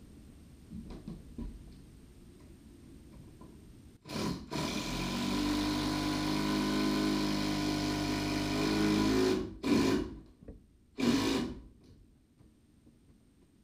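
Power drill driving a screw into a wooden barn beam: a short burst, a steady run of about five seconds, then two short bursts as the screw is seated.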